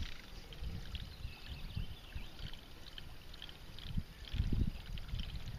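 Black buzzbait sputtering and gurgling as it is reeled across the water's surface, faint under a low rumble.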